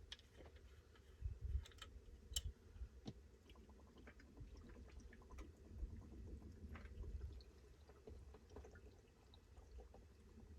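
Faint clinks and small knocks of a bottle and cup being handled, with whiskey being poured quietly.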